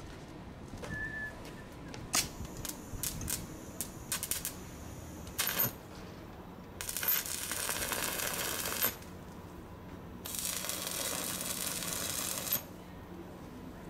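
Stick (shielded metal arc) welding on steel plate: a scatter of short ticks first, then two crackling bursts of the arc, each about two seconds long, as tack welds are laid.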